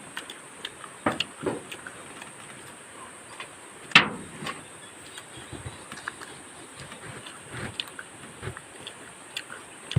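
People eating roast chicken: scattered chewing, smacking and small clicks, with one sharp loud click about four seconds in, over a faint steady hiss.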